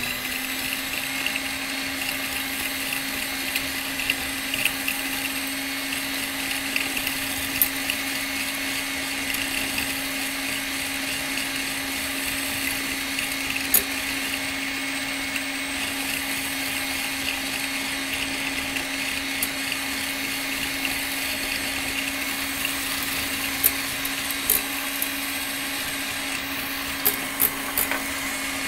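Electric mixer with twin beaters running at a steady speed, whipping egg yolks with sugar into a creamy mass. The motor holds one even pitch, with a few sharp clicks near the middle and toward the end.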